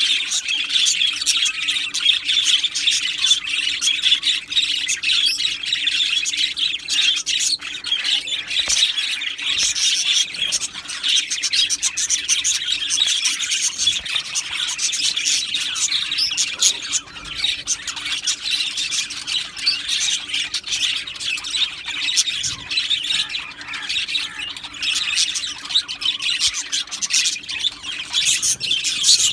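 A colony of budgerigars chirping and squawking together in a continuous dense chatter, with a faint steady hum underneath.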